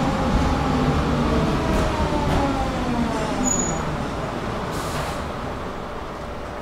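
Tram running on its rails, heard from inside the car: its motor whine falls in pitch as it slows, and the running noise dies down toward the end. A short hiss about five seconds in.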